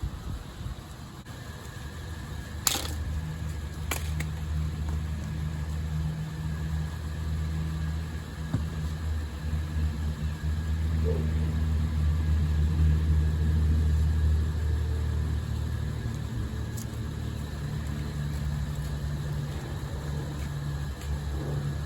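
A steady low engine- or motor-like drone that swells and eases, with two sharp clicks about three and four seconds in.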